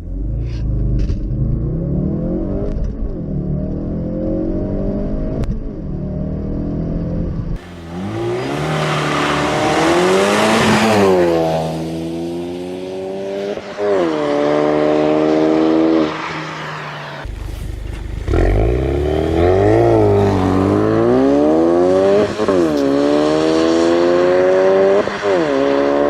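2016 Ford Focus RS's 2.3-litre turbocharged four-cylinder revving, then accelerating hard through the gears, its pitch climbing and dropping back at each upshift. The sound changes abruptly about 7 and 17 seconds in, where separate clips are joined.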